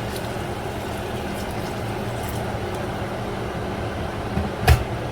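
Steady low hum and hiss in the kitchen while chicken cooks in a pan on the stove, with one sharp knock about four and a half seconds in.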